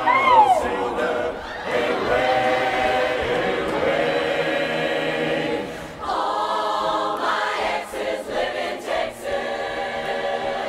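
Large mixed choir singing held chords, opening with a high sliding whoop; about six seconds in the singing turns choppier, with short sharp accents.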